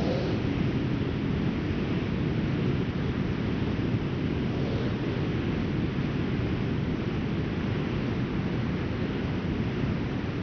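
Strong wind blowing steadily, a dense low rumble with a lighter hiss above it and faint gusts swelling now and then.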